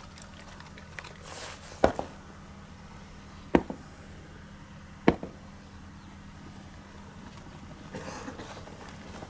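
Three sharp bangs, about a second and a half apart, over a faint steady hum.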